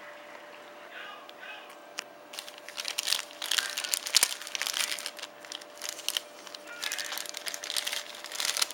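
Mouse packaging being opened by hand: plastic and cardboard crinkling and crackling in rapid clusters, starting a couple of seconds in.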